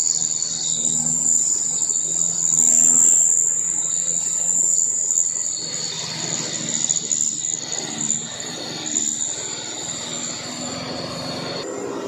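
Insects shrilling in a steady, high drone, with a vehicle engine running low underneath. The engine sound grows busier through the second half as the insect drone fades near the end.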